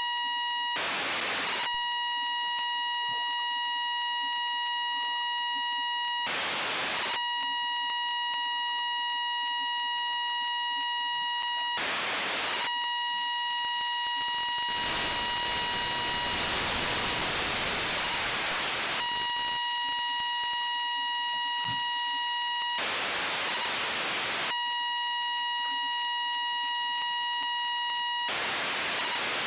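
FM-demodulated radio downlink from the AMSAT OSCAR 92 (Fox-1D) satellite: a steady buzzy tone near 1 kHz, broken five times by bursts of hiss as the signal drops into noise, the longest lasting about four seconds near the middle.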